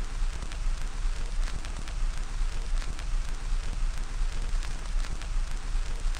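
Surface noise from a gramophone's steel needle riding the groove of a spinning shellac 78 record: a steady hiss crowded with crackles and pops over a low rumble, with no music playing.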